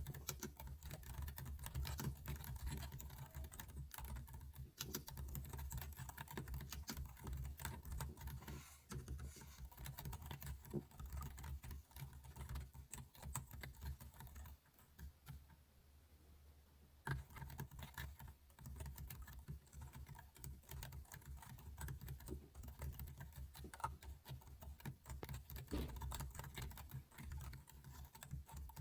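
Computer keyboard typing: dense, irregular keystroke clicks with a pause of about two seconds about halfway through.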